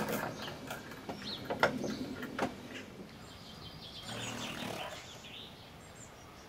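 Several light knocks and taps in the first couple of seconds, then a short spell of high bird chirps about four seconds in.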